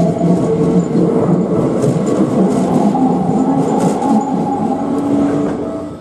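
Toei 5300 series commuter train passing at close range: steady, loud noise of wheels and running gear on the track, fading out at the very end.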